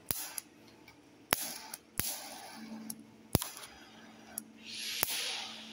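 TIG (argon) welding arc at a tube joint: about five sharp snaps, a steady low buzz from about halfway in, and a hiss that swells near the end.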